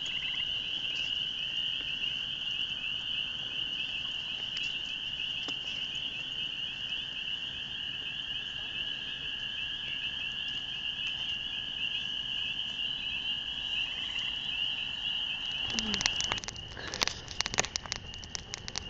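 A dense, steady frog chorus of high trilling calls, with a weaker, lower-pitched chorus underneath. Near the end a wood fire starts crackling and popping over the chorus.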